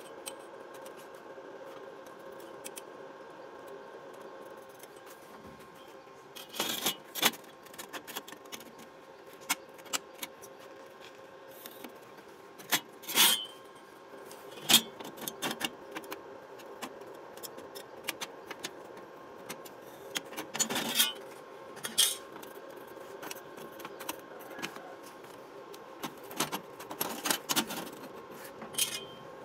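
Steel rule and scriber clinking and scratching against flat steel bars on a steel workbench as lines are marked: scattered light taps and short scrapes, over a faint steady hum.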